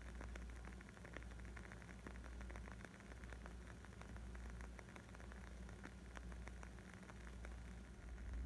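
Faint wood fire crackling: a dense, irregular stream of small pops and snaps over a low steady rumble.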